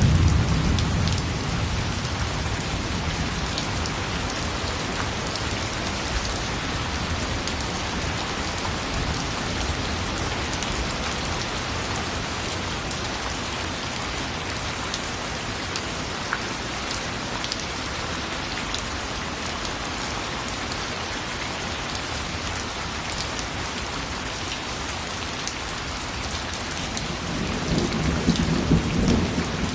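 Steady rain falling, with scattered drops ticking. Low thunder rumbles away in the first couple of seconds and rumbles again near the end.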